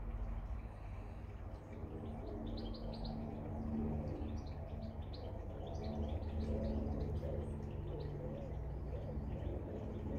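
Garden birds chirping, short high calls scattered through, over a low steady hum and rumble.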